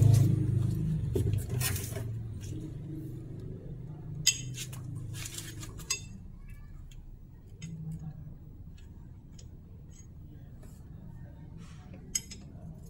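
Metal hand tools clinking as they are picked up off concrete and put to the engine oil drain bolt, with a few sharp clinks about four, six and twelve seconds in. A low hum fades out over the first few seconds.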